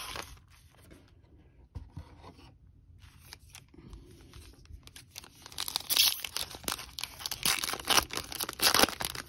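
A foil trading-card pack wrapper being torn open, crinkling and tearing loudly through the second half after a few light taps of packs being handled.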